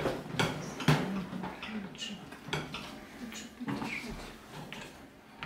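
A plastic cage shelf knocking and clattering against the metal wire bars of a rat cage as it is fitted into place: a run of irregular sharp clicks and knocks, the loudest about a second in.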